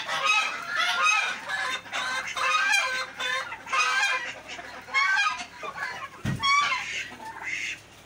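A mixed poultry flock of hens, turkeys and guinea fowl calling while they peck at food scraps: many short, harsh calls overlap and repeat rapidly. There is a low thump about six seconds in.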